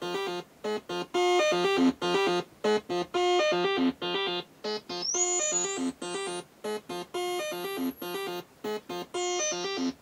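A 1979 Maplin 5600S analogue synthesiser plays a fast, repeating pattern of short pitched notes from its four oscillators, run through its first filter. A high whistling tone glides up about halfway through and slides back down near the end.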